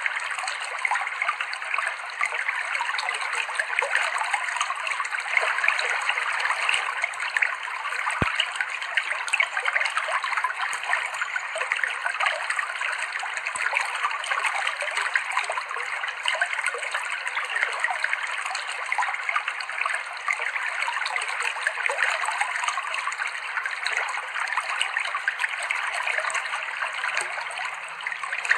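Clear, shallow river water flowing and splashing steadily over rocks: an even, bubbling rush.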